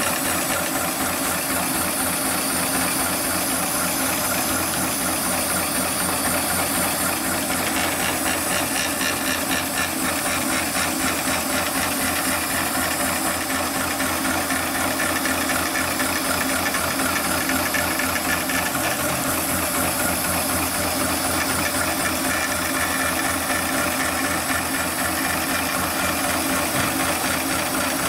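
Heavy-duty computerized pattern tacking sewing machine stitching through thick synthetic webbing: a fast, even needle clatter that runs without a break. A steady hiss of cooling air from the needle-cooling nozzle sits over it.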